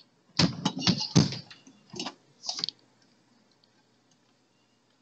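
Clicks and knocks of an O-gauge model locomotive and its tender being handled and fitted together on the track: a quick run over the first second and a half, then two single clicks.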